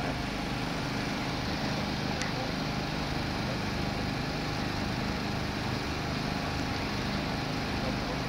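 An engine running steadily at one constant speed, an even hum over a broad hiss.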